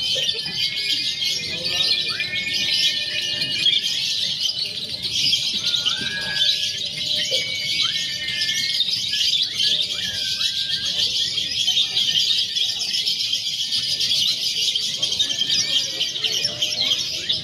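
Many caged lovebirds chattering and trilling together in a dense, unbroken, high-pitched chorus, with a few clearer whistled notes standing out now and then.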